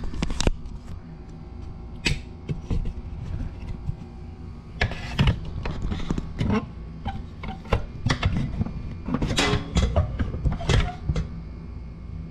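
Irregular clicks, knocks and rustling as a handheld camera is moved about and set down, over a steady low hum.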